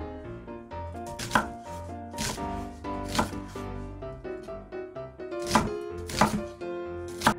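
Chef's knife chopping an onion on a wooden cutting board: several sharp knocks of the blade on the board, unevenly spaced, over soft background music.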